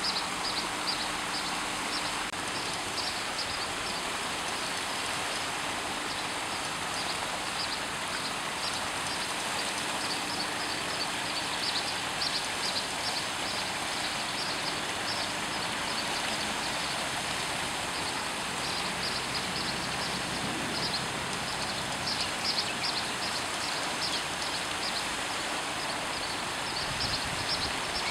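Steady rushing of water from a small waterfall, with runs of rapid high-pitched ticking chirps coming and going on top.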